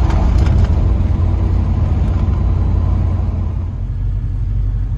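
A 1955 Chevrolet on the move, heard from inside the cabin: a steady low drone of engine and road noise that eases slightly a little under four seconds in.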